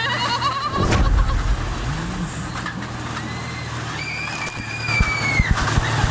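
Carnival horror-train ride running: a steady low machine hum, a heavy thump with a rumble about a second in, then a high held wail a little past the middle, and a few sharp clicks near the end.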